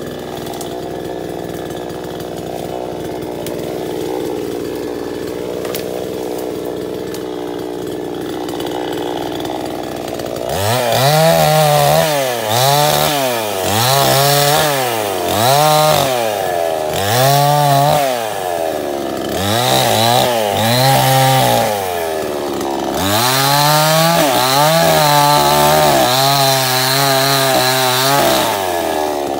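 Salem Master two-stroke gas chainsaw idling steadily. From about ten seconds in it is revved up and down in about eight quick blips as it cuts into branches, then held at full speed for several seconds near the end.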